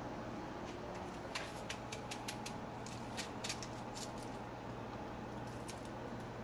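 Steady low hum with a scattered run of light, irregular clicks and taps, mostly in the first half and again briefly near the end.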